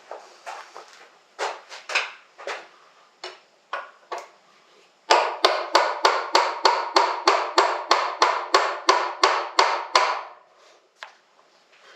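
Brass hammer striking a drift to tap a motorcycle front axle out of its hub. A few scattered knocks come first, then a steady run of about twenty quick taps, about four a second, for some five seconds.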